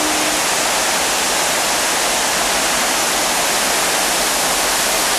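Fountain jets rushing and splashing back into their basin: a loud, steady wash of falling water.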